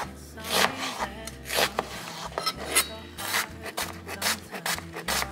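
Chef's knife slicing through a white onion on a plastic cutting board: a steady run of cuts, about two to three a second, coming a little faster in the second half.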